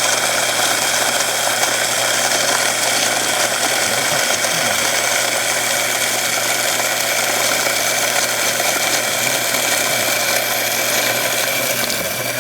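Hand-cranked coffee mill grinding coffee beans, a steady grating and rattling.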